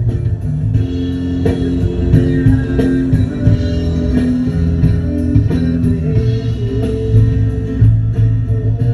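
Rock band music: guitar and bass guitar over drums, with a steady cymbal tick about four times a second.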